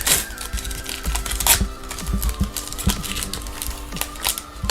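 Trading cards being handled and flipped through, an irregular run of sharp clicks and snaps as the cards slide against one another, over steady background music.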